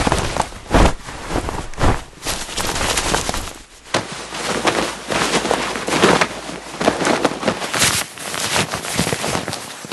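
Clothing fabric rustling and being handled, a dense run of brisk swishes and crackles.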